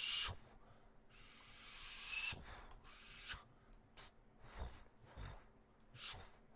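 Mouth-made sound effects: one long breathy hiss, from about a second in to about two and a half seconds, with a brief thin whistle near its end. Short puffs, pops and clicks come before and after it.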